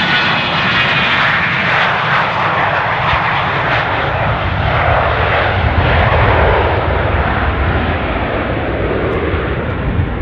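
A jet aircraft passes close by with loud engine noise. Its pitch falls midway through as it goes past, then the sound settles into a steady rumble that slowly fades.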